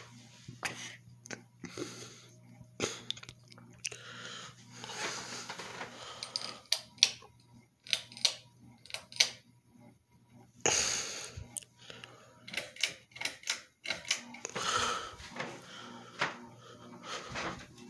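Hampton Bay Carousel ceiling fan running, its motor giving a steady low electrical hum, with irregular clicks and short rushes of noise coming and going over it.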